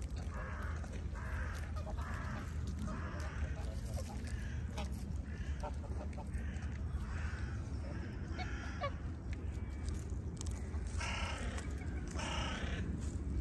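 Waterfowl honking over and over in short calls, about one every half second to second, with two louder, longer honks near the end, over a steady low rumble.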